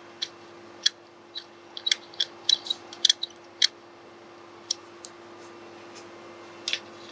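Small metal parts clicking and tapping as a wire's ring terminal and fittings are handled on a metal battery hold-down clamp: a run of irregular sharp clicks, thickest a couple of seconds in, then a few more near the end. A steady hum sits underneath.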